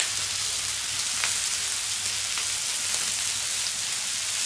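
Meat and vegetable skewers sizzling on a hot steel fire plate: a steady hiss with a few faint crackles.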